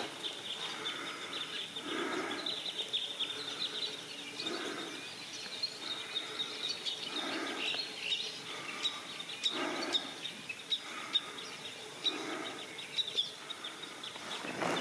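Songbirds chirping steadily in the background, with a soft sound with no clear pitch that swells and fades about every two and a half seconds.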